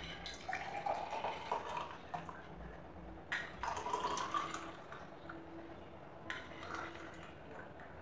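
Liquid poured from a steel saucepan through a steel tea strainer into a glass, trickling and splashing faintly. There are two light metal clinks, about three and six seconds in.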